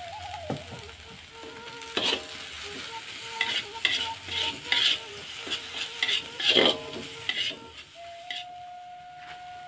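Metal spatula scraping and clattering against a steel wok as chopped Chinese betel leaves, chili and egg are stir-fried, the food sizzling. The scrapes come in a busy run from about two seconds in, thinning out near the end.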